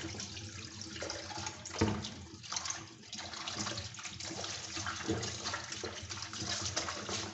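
Tap water running and splashing as the dirty filter pads from a Fluval 306 canister filter are rinsed, with a brief knock about two seconds in.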